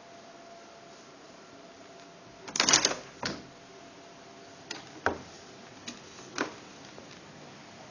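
Clattering rattle and clicks of a balcony door's metal fittings as the door or shutter is moved. The loudest rattle comes about two and a half seconds in, followed by a sharp click, then four lighter single clicks or knocks over the next few seconds.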